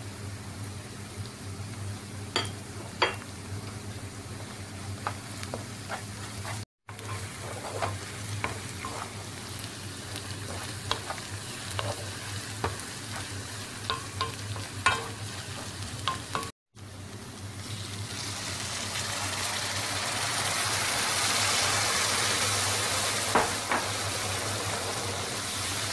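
Rice and chopped onion frying in a nonstick pan, stirred with a wooden spoon that clicks and scrapes against the pan over a low steady hum. After a cut, with liquid now in the hot pan, a loud sizzling hiss builds over a few seconds and holds.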